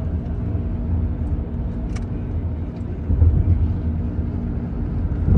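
Car driving, heard from inside the cabin: a steady low rumble of engine and road noise. A single sharp click comes about two seconds in.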